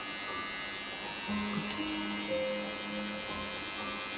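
Cordless electric beard trimmer switched on and running steadily, its small motor giving an even whine.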